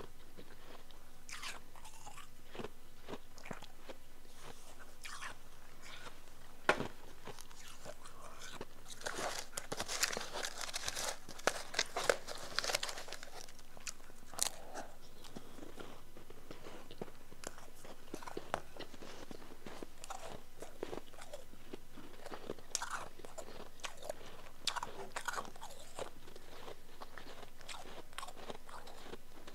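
Mouthfuls of powdery, chunky ice being bitten and chewed, an irregular run of crunches that comes thickest around the middle, with one sharper crunch a little before it.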